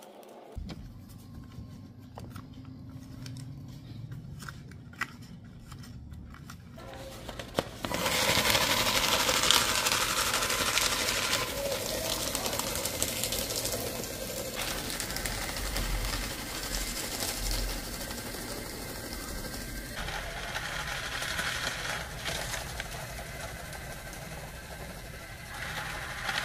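Deli electric paper shredder shredding paper, its motor and cutters starting up about a third of the way in and running on steadily, the sound shifting several times as sheets feed through. Before that, only faint clicks and paper handling.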